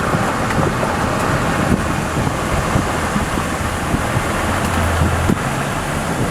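Strong wind blowing across the microphone, a steady loud rushing noise, with a low rumble swelling about five seconds in.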